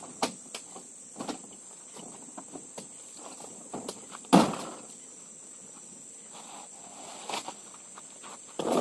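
Scattered knocks and thuds of oil palm fruit bunches being handled on a pickup truck's bed, the loudest about four seconds in. A steady high insect drone runs underneath.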